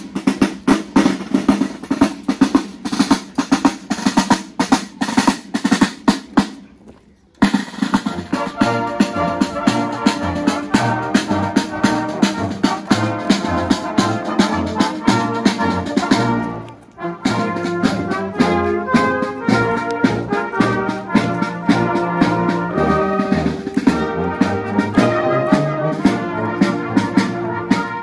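Marching band: snare drums play a rapid marching cadence, then, after a sudden cut about seven seconds in, the band plays a march with brass and saxophones over the drums. The march breaks off briefly about 17 seconds in and resumes.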